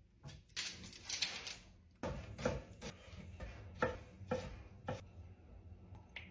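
A knife chopping on a cutting board in irregular strokes, about eight knocks spread over four seconds, after a short scraping sound near the start.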